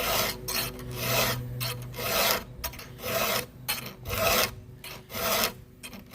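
A chainsaw file stroked by hand across the chain's cutter teeth to sharpen them: about ten strokes, a little under two a second.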